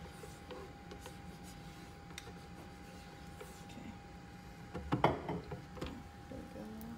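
Silicone spatula spreading oil across a nonstick electric grill pan, with faint scraping and light clicks over a steady faint tone. About five seconds in, a slice of bread is laid down on the pan, the loudest moment, a short cluster of sound.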